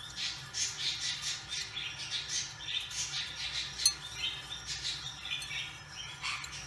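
A crowd of dwarf hamsters packed into a seed bowl, making short high scrabbling and squeaking sounds several times a second, with one sharp click about four seconds in.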